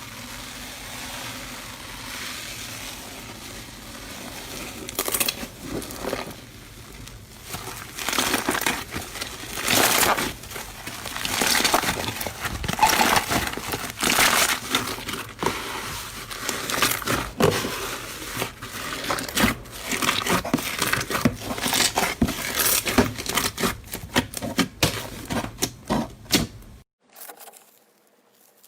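Slime being squeezed and worked by hand, making a dense run of short, irregular crackles and pops that grows busier after the first few seconds and stops abruptly near the end.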